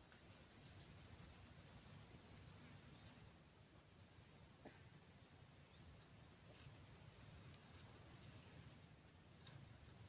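Faint, high-pitched insect trill in two long bouts. Each bout swells in loudness over about three seconds and then stops suddenly, with a gap of about two seconds between them.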